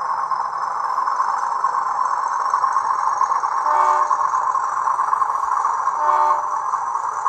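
Sound-equipped HO scale model of a SAR 900 class diesel-electric locomotive running, its small onboard speaker playing a steady engine sound. Two short horn toots sound, about four and six seconds in.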